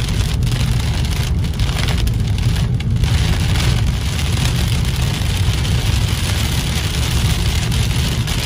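Steady low rumble of a car driving on a wet road, with heavy rain hitting the roof and windshield, heard from inside the cabin.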